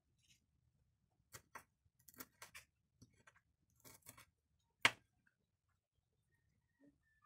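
Kitchen knife slicing red chili peppers on a bamboo cutting board: about a dozen faint, irregular taps of the blade against the board, the sharpest about five seconds in, then it stops.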